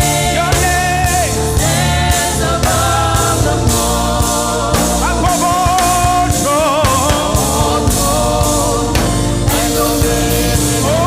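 Gospel praise song: voices singing a bending melody with choir-style backing over a band with a steady, even beat.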